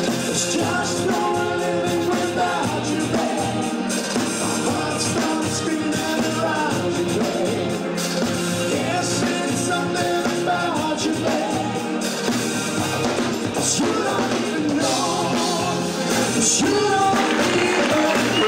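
A male lead singer sings a pop-rock song over a full band with drums and electric guitar.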